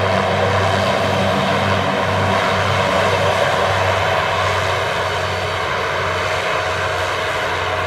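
Twin Pratt & Whitney PT6A turboprop engines of a Beechcraft King Air C90GTx running as it rolls out on the runway after landing. A steady propeller drone with a low beating hum, easing slightly near the end.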